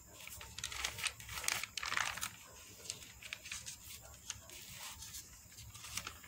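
Glossy paper catalogue pages rustling and crinkling as they are turned and handled, a run of short paper rustles that is busiest in the first two seconds and lighter after.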